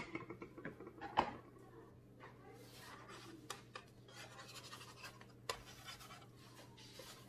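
Faint, irregular scraping of a utensil over the surface of an electric griddle, with a few sharp clicks, the clearest about a second in and again about five and a half seconds in.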